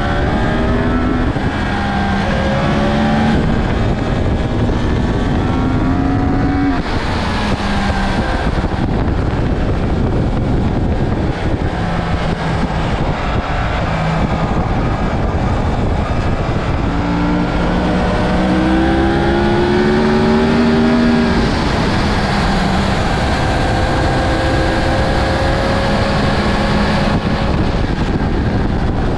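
Small-displacement motorcycle engine heard from on board at track speed, its note climbing in pitch under acceleration and breaking off at gear changes, several times over, under a heavy rush of wind and road noise.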